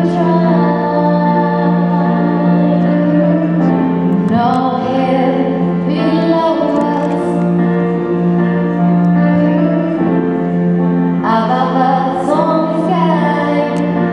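High-school girls' chorus singing with accompaniment: a steady held chord underneath, with sung vocal phrases coming in twice, about four seconds in and again near the end.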